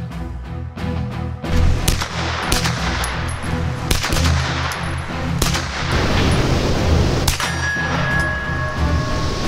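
Intro music with a steady beat, overlaid by shots from a 9mm Hi-Point carbine and steel plate targets ringing as they are hit: about seven sharp strikes at uneven spacing, the later ones leaving a lingering metallic ring.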